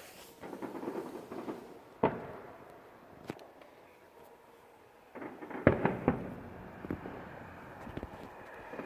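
Fireworks display bangs: a single sharp report about two seconds in, then a quick cluster of several bangs around five to six seconds in, followed by a few smaller pops.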